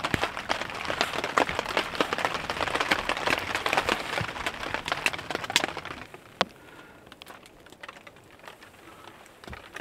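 Dense patter of precipitation on the tent fabric, loud for about six seconds, then dropping away to a quieter background with scattered crackles from a burning wood stove.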